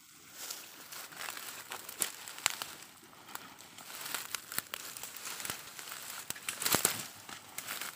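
Rustling and crinkling of footsteps and plastic gear moving through grass and dry leaves, with many sharp crackles that are loudest near the end.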